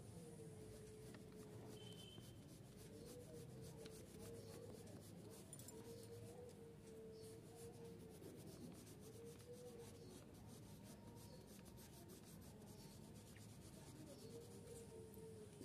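Faint pencil scratching on paper: quick, irregular shading and drawing strokes of a pencil tip. A faint wavering hum comes and goes underneath.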